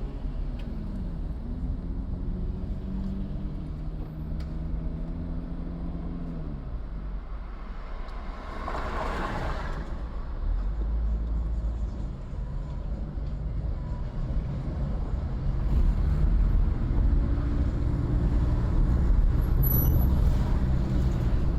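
Car engine and road noise while driving in city traffic, the engine pitch rising and falling with speed. A short hiss about nine seconds in.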